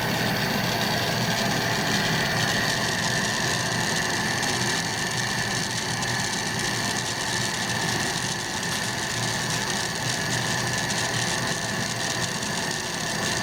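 Steady hiss and hum of glassblowing shop equipment running, holding an even level throughout.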